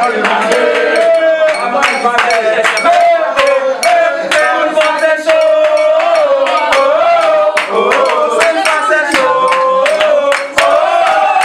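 A group of people singing together and clapping their hands.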